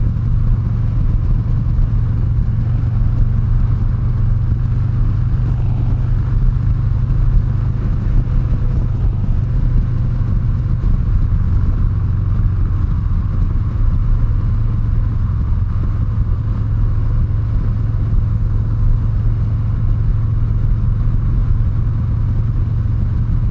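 Harley-Davidson Heritage 114 Softail's V-twin engine running steadily at freeway cruising speed, with wind and road noise.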